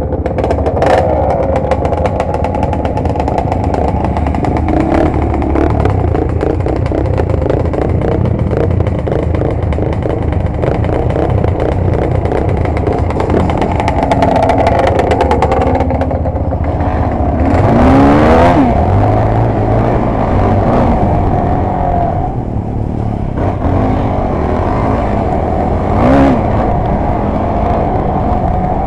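Off-road engines of quads and dirt bikes running on the move. The nearest engine revs up sharply about two-thirds of the way through and again briefly near the end, with many small rattles in the first half.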